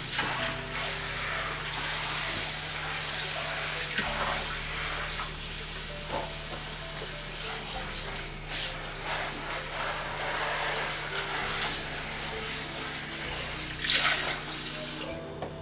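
Tap water running into a sink as dishes are washed under it, with a brief louder splash or clatter near the end; the water stops just before the end. Soft background music with a steady low drone plays under it.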